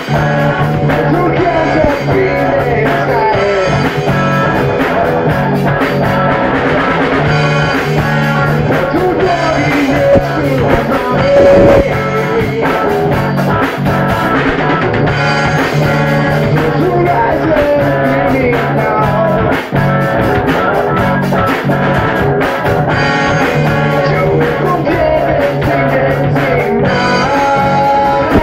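Rock band playing a funk-rock song live in rehearsal: drum kit and guitar, with a sung vocal line. Loud and continuous.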